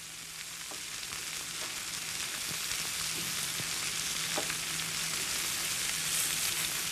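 Raw buffalo burger patties sizzling on a hot, lightly oiled indoor grill, the sizzle slowly growing louder as more patties are laid on the grates.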